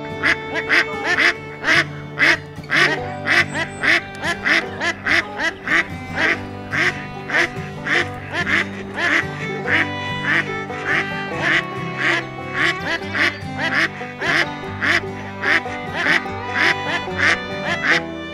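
Ducks quacking over and over in a quick, even run of about two quacks a second, over steady background music.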